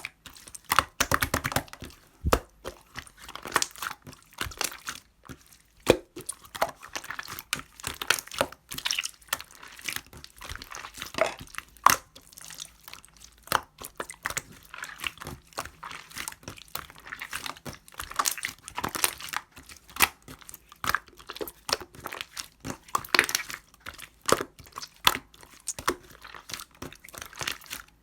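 Hands working a soft pudding slime, with quick, irregular sticky clicks, pops and squishes.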